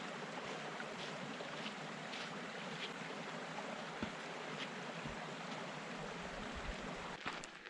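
Rushing water of a mountain stream or cascade: a steady, even rush that starts and ends abruptly.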